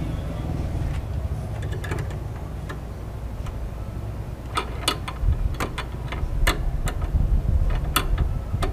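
Plastic wiring connector being handled and fitted at a car horn: a scatter of small sharp clicks and rattles, more frequent in the second half, over a steady low rumble.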